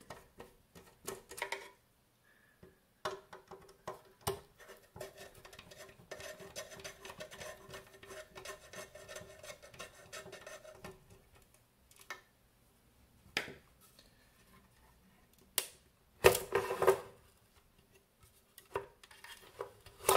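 Circuit boards and the aluminium card chassis of an avionics unit being handled on a bench: scattered clicks and knocks, a stretch of light rattling and scraping lasting about eight seconds, and a louder clatter about sixteen seconds in.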